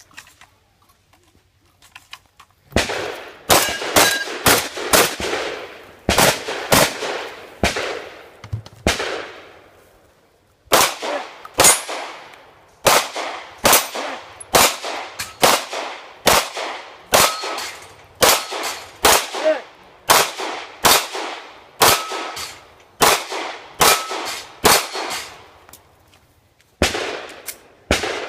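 A rapid string of gunshots starting about three seconds in, roughly two a second, dozens in all. There are two short pauses, one about ten seconds in and one near the end. Some shots are followed by a brief metallic ring, typical of hit steel targets.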